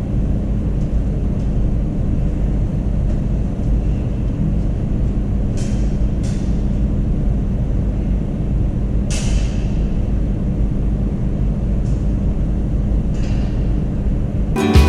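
A steady low rumble, with three brief hissing sounds about five and a half, six and nine seconds in. Music starts just before the end.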